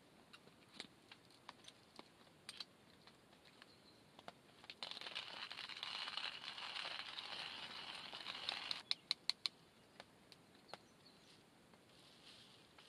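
Hand coffee grinder grinding beans for about four seconds, starting and stopping abruptly, followed by a quick run of sharp taps. Scattered faint clicks before and after.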